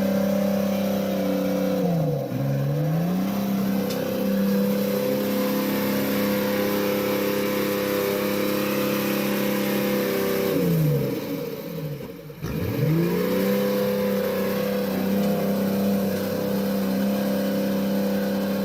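Vehicle engine held at high, steady revs. The revs drop and climb back twice: briefly about two seconds in, and for longer near the middle.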